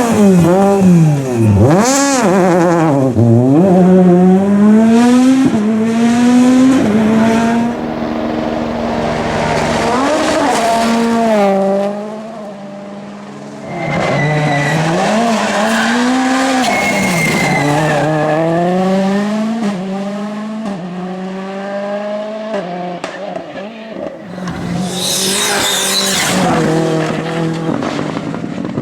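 Rally car engines revving hard, pitch rising and falling repeatedly through gear changes and lifts, with tyre squeal. The sound drops away for about two seconds near the middle, and a sharp high-pitched screech comes near the end.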